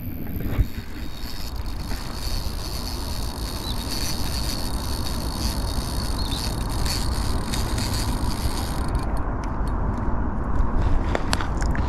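Fixed-spool spinning reel working as a hooked carp is played on a bent rod: a steady mechanical sound from the reel's drag and gears, with a few sharper clicks near the end, over wind rumble on the microphone.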